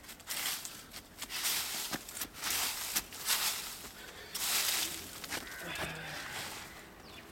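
Dry fallen leaves rustling and crackling in repeated bursts as they are scooped up by hand and pushed into a plastic sack.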